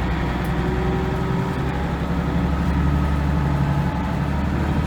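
Leyland National Mk2 bus's Leyland L11 diesel engine running steadily, its note shifting about a second and a half in.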